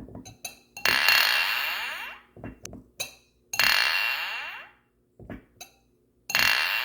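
Glass clinking: three loud clinks about every two and a half seconds, each ringing out with a clear high tone for over a second. Small, light taps and clicks come in between.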